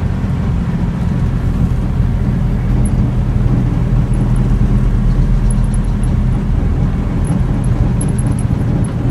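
A car heard from inside its cabin while cruising at a steady speed on a smooth road: a steady low hum of engine and tyre noise.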